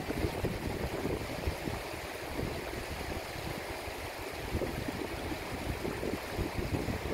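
Small mountain stream running over stones: a steady rush of water with an uneven low rumble.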